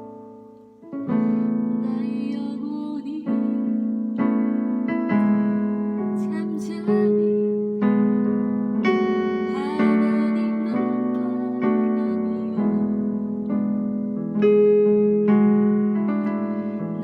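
Piano or electric piano playing slow sustained chords, a new chord struck about every second or so and dying away between strikes, after a short pause about a second in.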